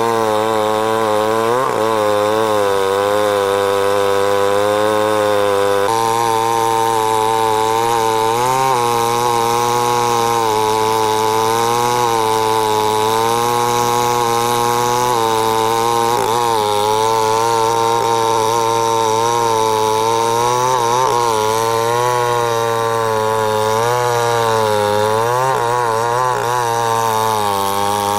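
Large two-stroke chainsaw running at high revs while cutting deep into a big log. The engine note wavers up and down continuously as the chain bogs in the cut and picks up again. Its tone shifts abruptly about six seconds in.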